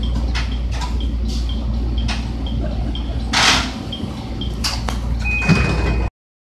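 Stopped JR Kyushu BEC819 battery-electric train: a steady low hum with short high beeps about twice a second, a loud hiss about three and a half seconds in as the doors open, and a steady high tone near the end before the sound cuts off abruptly.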